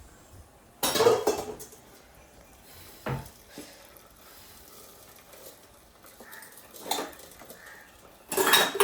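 Metal cooking pots and utensils being handled and set down: a loud clatter about a second in, a sharp knock a couple of seconds later, and another clatter near the end.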